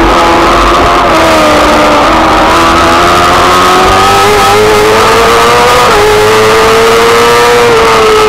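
F2 racing sidecar engine at high revs, heard from on board: its pitch dips about two seconds in, climbs steadily, steps once about six seconds in, then eases near the end, over a heavy low rumble of wind.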